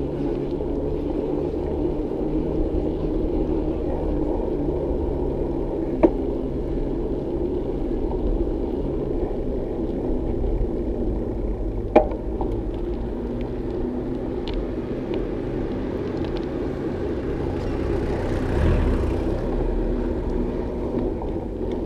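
Steady low rumble of a bicycle ride, wind and tyre noise on the camera, with two sharp knocks about six seconds apart and a brief swell of noise near the end.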